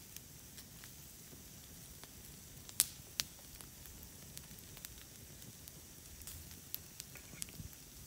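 Campfire crackling: a steady hiss broken by scattered sharp pops, the two loudest close together about three seconds in.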